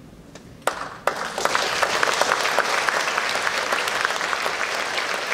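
Audience applause at the end of an orchestral piece: one lone clap under a second in, then many hands join and it quickly swells into steady applause.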